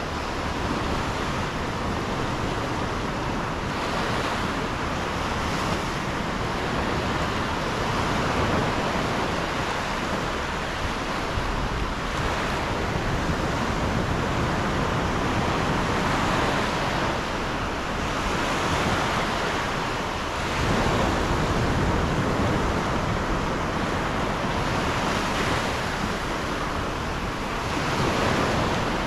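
Sea surf breaking and washing up the beach, a steady rush that swells and eases every few seconds, with wind rumbling on the microphone.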